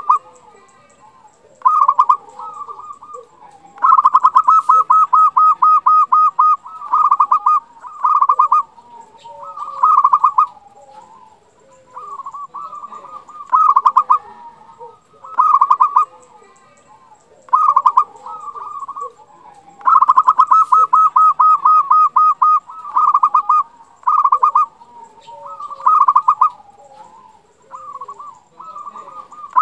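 Zebra dove (perkutut) singing its rolling coo: short bursts of rapid pulsed coos every second or two, two of them drawn out into long trills of about two and a half seconds.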